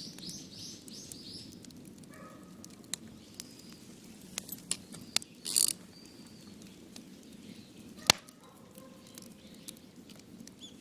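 Firewood cracking and knocking: a handful of irregular sharp cracks, the loudest a short crunching burst about halfway through and a single sharp crack about eight seconds in. A bird chirps rapidly at the very start.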